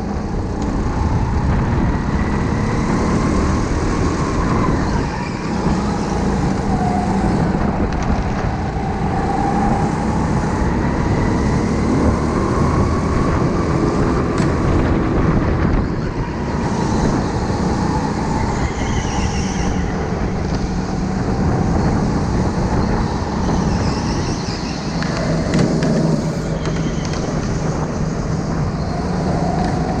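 Electric go-kart running at speed, heard onboard: a motor whine that rises and falls in pitch as the kart speeds up and slows for corners, over steady rumble from the tyres and chassis.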